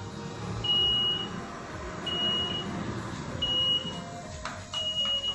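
Electronic beeper of an automatic pani puri vending machine, beeping repeatedly: a high steady beep of about half a second, four times, once every second and a half or so.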